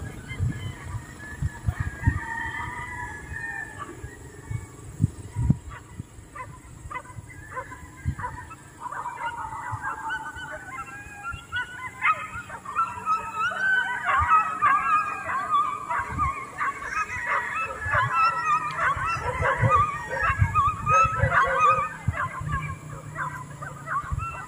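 Several animals calling over one another in wavering, overlapping cries that grow busier from about eight seconds in. Short sharp knocks come in the first few seconds.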